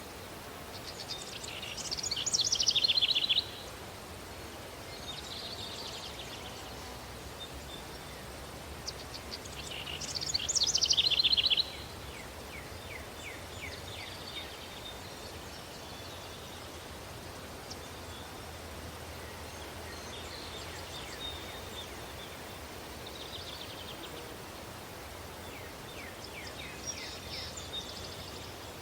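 Country daytime ambience: songbirds calling over the steady hiss of a breeze. Two loud, fast trilling songs swell and stop abruptly, about a second in and again about nine seconds in, with fainter chirps between.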